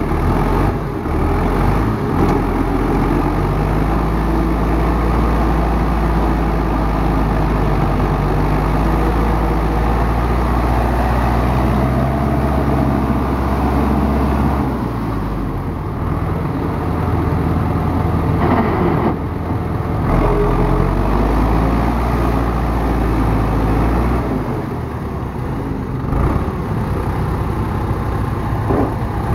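Off-road vehicle's engine running under changing load, its pitch rising and falling several times as it drives.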